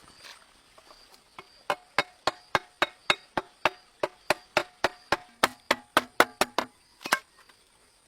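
A rapid, even series of about twenty sharp knocks, roughly four a second, then a pause and one last knock.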